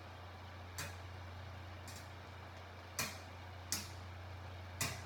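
Metal coat hanger hanging from a string, swung against a table: five tinny knocks about a second apart, each cut short with only a brief ring. A steady low hum runs underneath.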